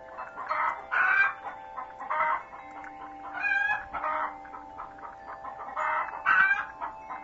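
Chicken clucking in a series of short calls, about seven of them spread unevenly, over a faint steady hum.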